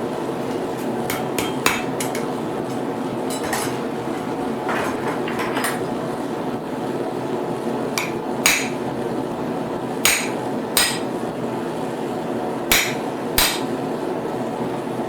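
Blacksmith's hammer striking hot steel on an anvil: about fifteen ringing blows at an uneven pace, often in pairs, with the heaviest ones in the second half. A steady hum runs underneath.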